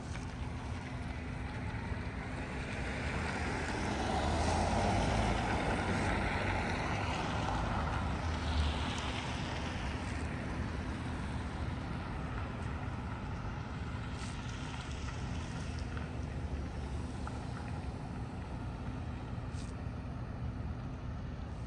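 Street traffic: a car passes on the road, its tyre and engine noise swelling a few seconds in and falling away by about nine seconds, over a steady low rumble.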